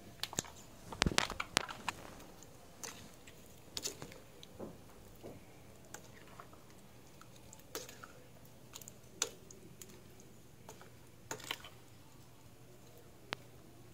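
Green spatula stirring chicken through a thick yogurt-and-spice marinade in a bowl: irregular light clicks and taps against the bowl, with a cluster of them about a second in.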